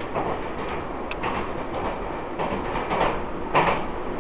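Running noise of a Taiwan Railways EMU800 electric commuter train at speed, heard from inside the car. It is a steady rumble with a few sharp clicks, and one louder clack about three and a half seconds in.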